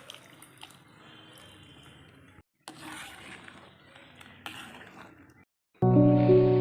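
Faint liquid sounds and small clinks of tamarind water being poured into a cooking pot, cut off twice by brief dropouts. Background music comes in loudly near the end.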